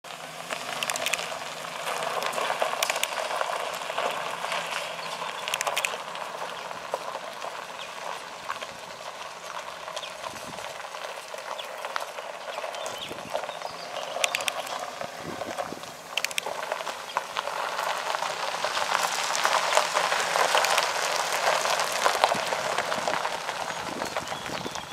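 2009 GMC Sierra 1500 pickup's tyres crunching and popping over loose gravel. The sound is loud at first, fades as the truck drives off, and grows again as it comes back close near the end.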